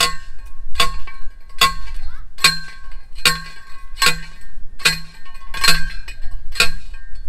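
Steel fence post being driven into the ground with a hand post driver: regular metallic clangs, about one every 0.8 seconds, nine in all, each ringing briefly.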